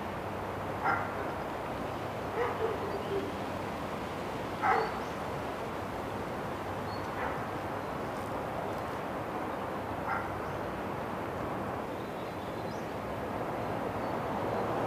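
A dog barking: several single, short barks a couple of seconds apart, heard faintly over a steady rushing hiss.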